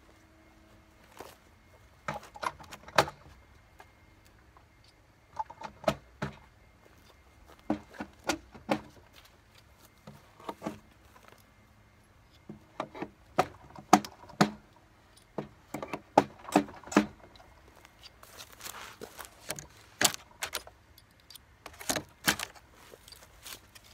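Hand tools pulling old nails out of weathered reclaimed lumber: clusters of sharp metallic knocks and clinks, with short pauses between, coming faster in the second half.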